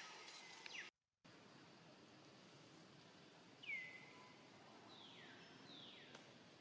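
Quiet outdoor background with three short, high-pitched calls that each fall in pitch, the first a little over halfway through and two more close together near the end. The sound drops out completely for a moment about a second in.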